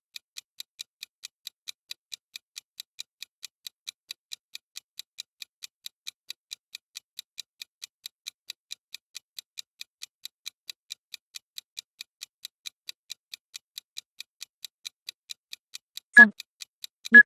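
Interval workout timer ticking: thin, even, high ticks at about four a second while the workout interval counts down.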